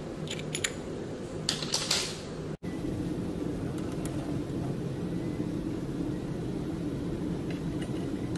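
Steady mechanical hum of room air handling, with a few light clinks about half a second in and again around one and a half to two seconds in. The sound drops out for an instant about two and a half seconds in, then the hum goes on with faint ticks near the end.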